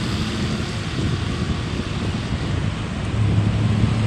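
Road traffic with a heavy vehicle's engine hum, under a wash of road and wind noise; the hum grows louder about three seconds in.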